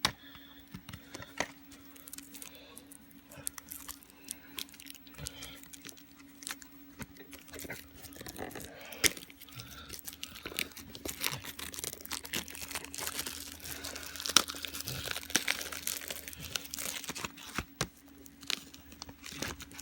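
Hands working open the packaging of a VHS tape: irregular crinkling, tearing and small clicks of plastic and cardboard, busiest about two-thirds of the way through, over a faint steady hum.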